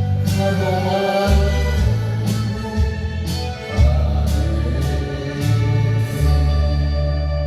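A Korean trot song playing: a singing voice over a band with a strong bass line, steady drum beats and keyboard.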